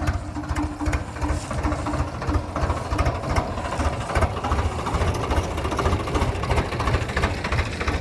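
Diesel engine of a heavy machine running steadily, a rapid low pulse from the exhaust.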